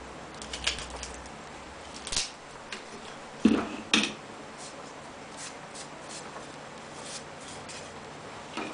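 Handling noise of thin cedar frame strips and small tools on a metal jig: scattered light clicks and taps of wood against wood and metal, with two louder knocks about half a second apart a little before the middle.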